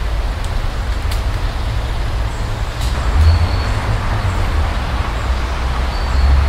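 Steady street traffic noise: a deep rumble under an even hiss, with a couple of brief high-pitched tones.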